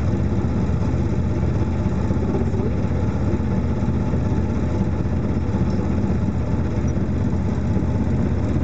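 Steady low drone of a motorboat engine running, heard from on board.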